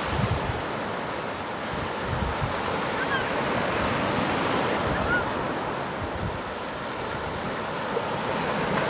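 Sea surf washing on the shore, a steady rushing noise, with wind buffeting the microphone in low gusts.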